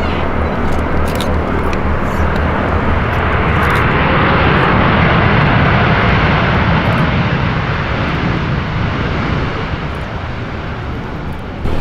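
Jet engines of a Boeing 787-9 Dreamliner running as the airliner touches down and rolls out along the runway. The roar swells to its loudest about halfway through as the aircraft passes, then eases off.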